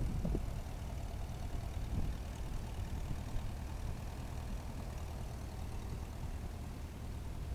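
1948 International H tractor's four-cylinder engine running steadily as the tractor drives slowly along, with a short gust of wind on the microphone at the very start.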